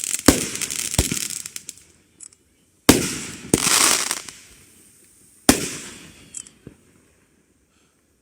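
Fireworks going off: a crackling hiss with sharp bangs near the start and about a second in, then single sharp bangs about three seconds in and about five and a half seconds in, each trailing off in crackle. A couple of small pops follow before it goes quiet.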